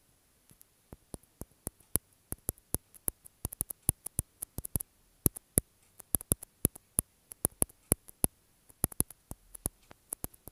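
A rapid, irregular run of short, sharp clicks, several a second and uneven in loudness, starting about half a second in.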